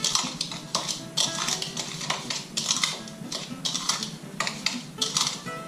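A spoon stirring dry cinnamon and sugar in a small bowl, scraping and clinking against the bowl in irregular strokes, a few a second.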